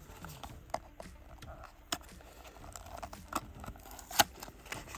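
Handling and opening a small cardboard-and-plastic toy package: scattered light clicks and rustling, with one sharper click a little after four seconds in.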